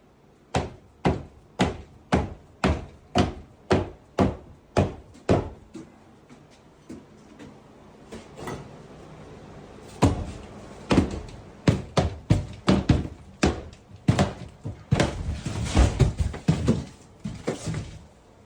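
Repeated heavy blows breaking out thick drywall: a steady run of strikes about two a second, a short lull with a few scattered knocks, then faster, louder blows near the end.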